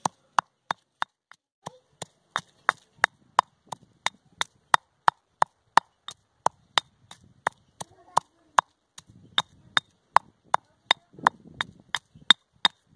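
Stone pestle pounding mint and coriander leaves, green chilli and garlic in a marble mortar: sharp knocks at a steady pace of about three a second.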